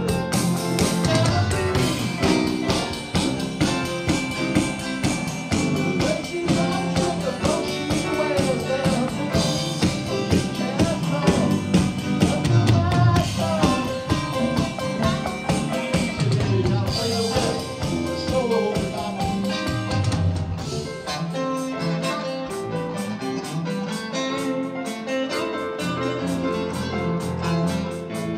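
Rock band playing a song in a rehearsal room: drums from a Roland electronic drum kit and electric guitar, with singing. The bass thins out about three quarters of the way through.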